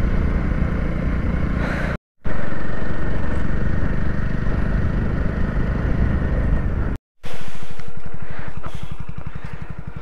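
Motorcycle engine running on a rough dirt track, mixed with wind and road rumble. The sound breaks off to silence twice for a moment; in the last few seconds the engine's even firing beat comes through clearly as it eases off and slowly gets quieter.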